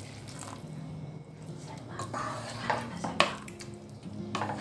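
Hot water poured into a non-stick pot of fried onion-tomato masala, then a wooden spoon stirring it, with several knocks and scrapes against the pot from about two seconds in, the loudest just after three seconds. A low steady hum runs underneath.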